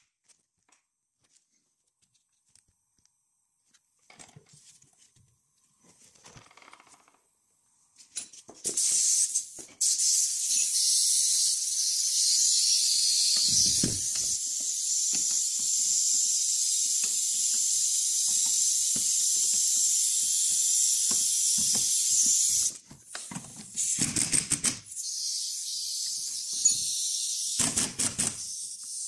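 Steady loud hiss of compressed air from a pneumatic tool, starting about eight seconds in and running for some fourteen seconds before cutting off, with light clicking underneath. Shorter bursts of hiss and a few clicks follow near the end.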